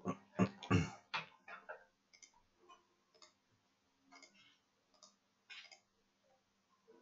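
Computer mouse clicking irregularly: a quick run of louder clicks in the first two seconds, then scattered single clicks over a faint steady hum.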